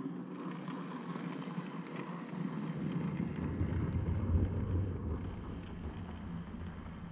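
OO gauge model steam locomotive running past close by, its wheels rumbling on the rails over a steady motor hum. The rumble grows about three seconds in, is loudest around four seconds in, then eases off.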